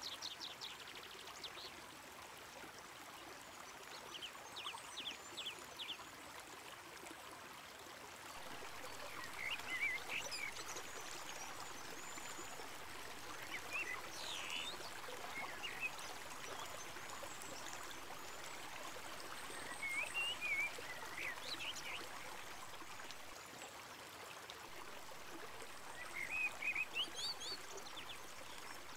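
Shallow river flowing over a stony bed, a steady gentle rushing, with small birds chirping and trilling every few seconds.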